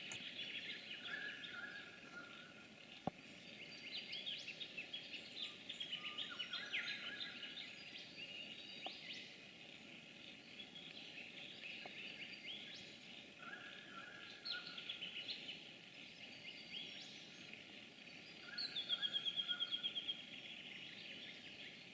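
Faint birdsong from several birds: scattered short chirps and whistles, with a rapid trill of evenly repeated notes near the end. A single sharp click about three seconds in.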